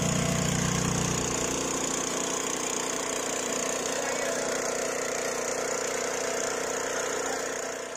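RI 740 power weeder's 9 HP single-cylinder four-stroke air-cooled petrol engine running steadily while its rotary tines work the soil. It drops a little in level about a second in.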